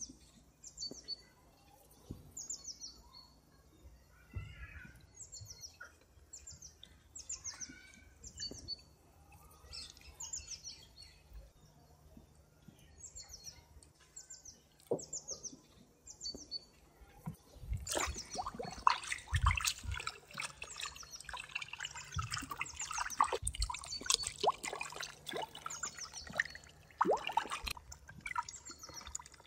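A bird repeats a short falling chirp over and over. About eighteen seconds in, water sloshes and splashes as hands wash a whole chicken in a tub of water.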